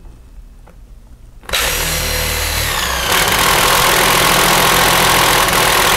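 Cordless impact driver boring into wood blocking with a paddle bit, its hammer mechanism working under load. It starts suddenly about a second and a half in and then runs loud and steady.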